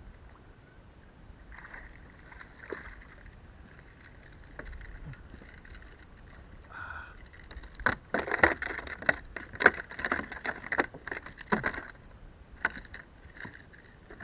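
Water splashing with a fast, irregular run of knocks and rattles against a fishing kayak, loudest for about four seconds in the second half.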